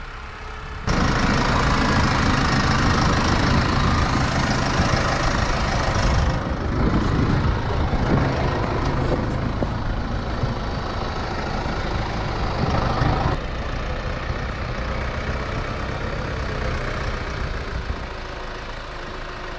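A heavy engine running steadily. The sound starts abruptly about a second in and changes suddenly about six and again about thirteen seconds in.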